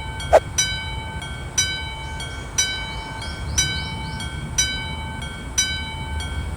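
Japanese railway level-crossing warning bell ringing its 'kan-kan' pattern: two alternating tones, each struck about once a second, over a steady low rumble.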